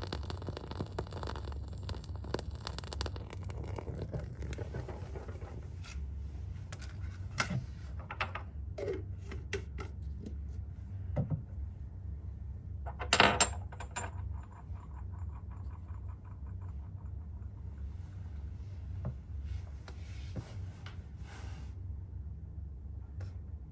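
Small alcohol flames burning in a row of porcelain crucibles: a steady low rumble with scattered soft crackles and clicks, and a brief louder clatter about 13 seconds in.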